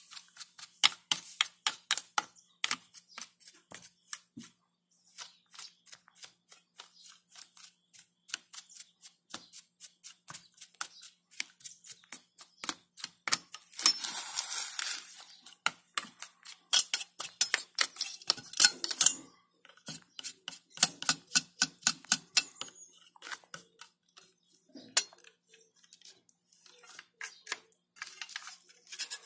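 Rapid, irregular clicks and taps of hands working on a disassembled computer power supply's metal case, with a longer scrape about fourteen seconds in and another burst of scraping and clicking around eighteen seconds.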